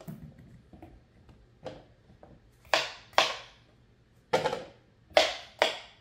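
A kitchen knife chopping cucumbers on a wooden cutting board: about half a dozen separate chops at an uneven pace, the loudest in the second half.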